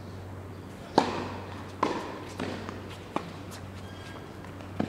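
Tennis ball struck by a racket on the serve about a second in, the loudest pop, followed by a few more sharp, echoing strikes and bounces as the rally goes on, over a steady low hum.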